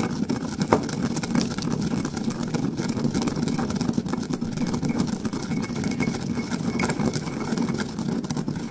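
Whole black peppercorns being crushed in a stone molcajete, the stone pestle grinding them against the bowl in a steady, gritty rubbing with fine crackling, and one sharper crack about three-quarters of a second in.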